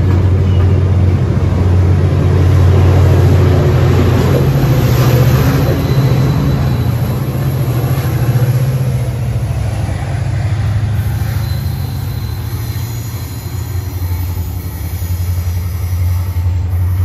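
Tri-Rail commuter train pulling out of a station: double-deck coaches rolling past, then the diesel locomotive moving away with a steady low engine drone that eases slightly toward the end.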